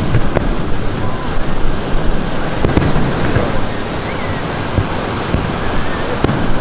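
Ocean surf washing onto the beach, with wind buffeting the microphone and scattered short pops.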